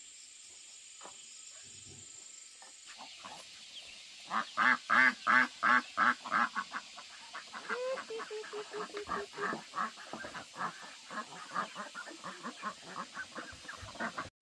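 Poultry calling: a rapid run of repeated harsh calls starts about four seconds in, at roughly three a second. The calls are loudest for the first few seconds and then go on a little quieter.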